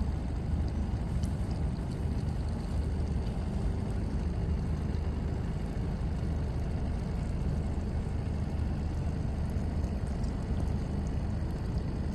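Boat motor running steadily at trolling speed, a low, even hum.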